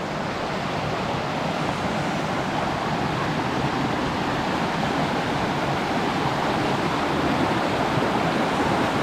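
A river rushing steadily, growing gradually louder.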